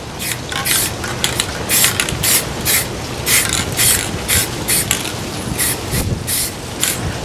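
Aerosol spray paint can worked through a clip-on trigger handle, hissing in short bursts about three times a second.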